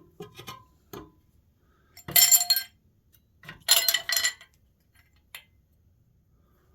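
Metal engine parts clinking and clattering against each other during a big-block engine teardown: a few light taps, then two loud clattering bursts about a second and a half apart, with a metallic ring.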